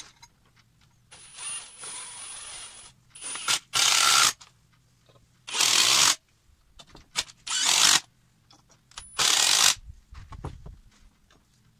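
Cordless impact driver driving screws through a pre-drilled steel plate into the end of a wooden block. First comes a longer, softer run, then four short, loud bursts of rapid impacting, about two seconds apart.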